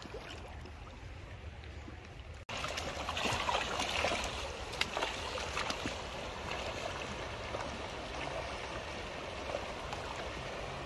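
River water running and lapping over a rocky shallow edge. A little after two seconds in it abruptly becomes louder and busier, with small splashes and clicks.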